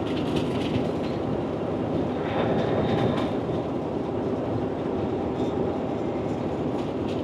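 Steady cab noise of a semi truck cruising at highway speed: the diesel engine running, with road and tyre noise.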